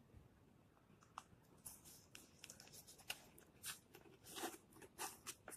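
Faint rustling and crackling of a Bible's pages and cover being handled and closed, a string of small crackles and clicks starting about a second and a half in; otherwise near silence.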